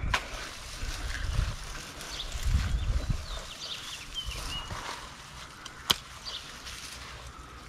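Hand pruners cutting into a mugo pine branch, with a sharp snip about six seconds in, amid rustling and low rumbles as the pine boughs are handled.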